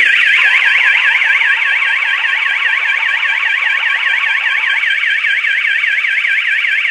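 Home alarm panel's siren sounding: a loud electronic tone warbling rapidly up and down, several sweeps a second. It has been set off by the motion sensor detecting movement while the panel is armed in away mode.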